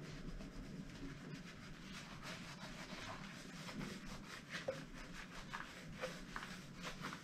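A soapy sponge scrubbing a glass: faint, repeated short rubbing strokes over a low steady hum.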